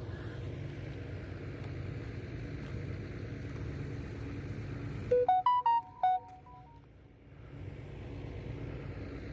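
A steady low diesel engine hum from an excavator working on the site. About five seconds in, a short electronic jingle of quick beeps at different pitches, a phone alert tone, cuts across it. The hum drops out briefly after the jingle, then comes back.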